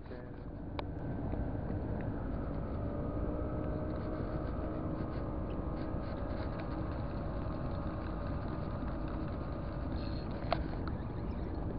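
An engine running steadily, a low rumble with a few faint held tones that rise a little at first and then stay level. A single sharp click near the end.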